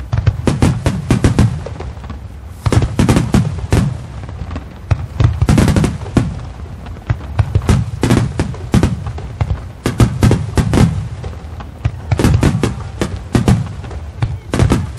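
Star mine fireworks barrage: rapid volleys of aerial shell bursts, bangs coming in dense clusters every second or two, with a low rumbling echo between them.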